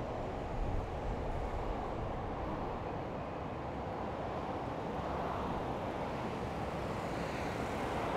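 Steady city street traffic noise with a low rumble, picked up from a moving bicycle.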